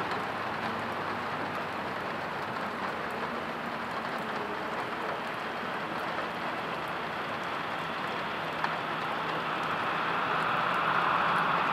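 Steady rain falling, an even hiss. Over the last two seconds a rushing noise swells louder under it.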